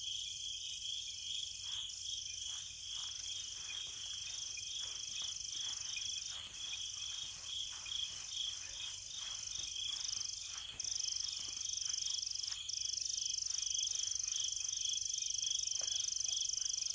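Night chorus of crickets: a steady, even chirping of about three chirps a second over a continuous high-pitched insect trill that briefly breaks off a few times.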